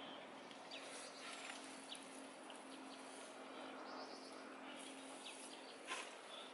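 Faint woodland ambience of scattered short bird chirps and insect noise over a steady low hum, with one brief sharp noise about six seconds in.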